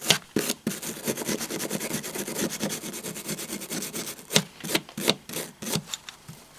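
Wire brush scrubbing dirt off a brass tap part in rapid back-and-forth strokes, a steady scratchy rasp with a few harder strokes.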